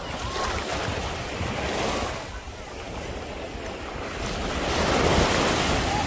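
Small waves breaking and washing up a sandy shore, the surge swelling twice and loudest about five seconds in, with wind buffeting the microphone.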